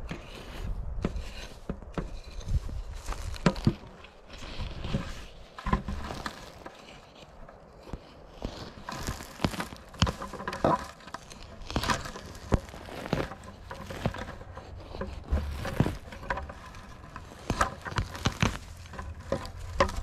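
Small wooden-handled digging tool scraping and chopping into dry pine-needle duff and soil, with irregular crackles, scrapes and knocks as dirt is flicked aside to unearth matsutake mushrooms.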